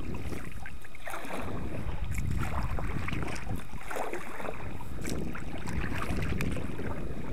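Water splashing and lapping around a Sun Dolphin fishing kayak on choppy river water, with wind buffeting the microphone as a steady low rumble.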